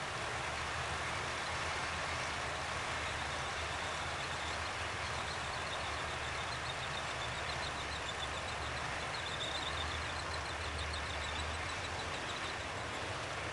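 Long rake of model railway grain hopper wagons rolling steadily along the track, a continuous rolling rattle with a low hum under it. From about four seconds in to near the end, a fast run of high-pitched ticks or squeaks rides on top.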